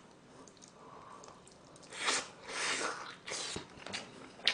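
A person chewing and gnawing meat off a pork bone from gamjatang, with wet mouth sounds close to the microphone. It is nearly quiet for about two seconds, then comes a run of short, noisy chewing sounds.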